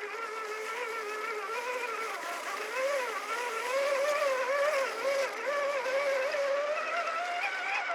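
Electric motor and gear whine of a 1/10-scale RC4WD Toyota Xtracab crawler truck being driven, the pitch wavering up and down as the throttle changes.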